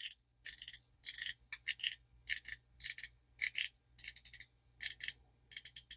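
Zebco 33 spincast reel's drag clicking in short rapid bursts, about two a second, as the drag is tested and slips.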